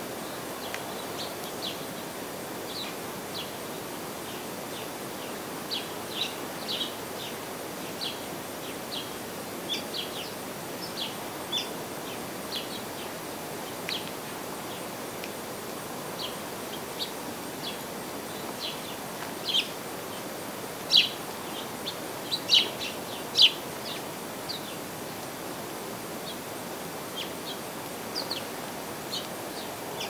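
Small songbirds chirping in short, scattered single chirps, busiest and loudest about two-thirds of the way through, over a steady background hiss.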